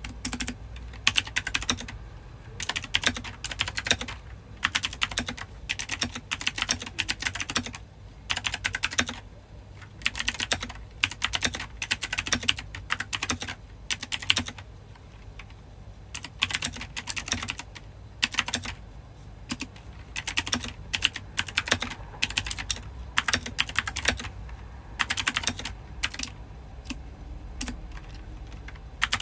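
Typing on a mechanical keyboard with Halloween-themed keycaps: quick runs of keystroke clacks broken by short pauses.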